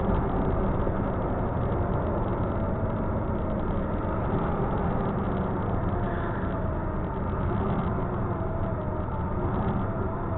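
Steady engine drone and road noise of a truck cruising at highway speed, heard inside the cab.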